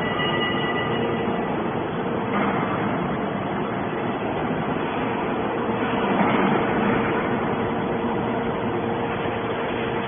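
Hydraulic scrap metal baler running: a steady mechanical drone with a constant hum, swelling briefly about six seconds in.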